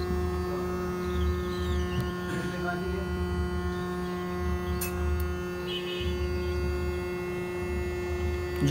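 Hot air rework gun blowing steadily with an electric hum, heating the underside of a phone circuit board to melt the solder under a memory card socket.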